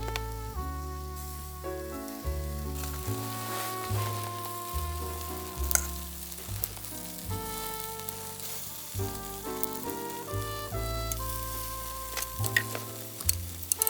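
Food sizzling in steady hiss, with a few sharp pops, under instrumental background music.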